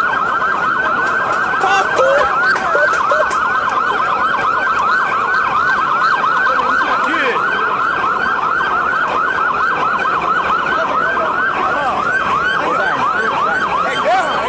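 Electronic sirens wailing in a fast yelp, the pitch sweeping up and down several times a second with overlapping cycles, continuous and loud over street and crowd noise.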